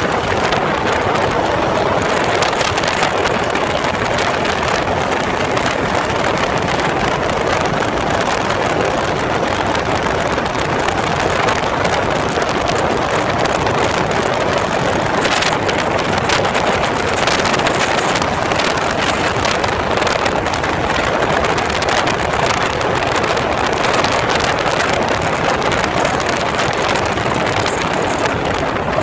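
Steady wind rushing over the microphone of a KTM Duke 200 motorcycle riding at highway speed. Engine and road noise are mixed into the rush, with no clear engine note standing out.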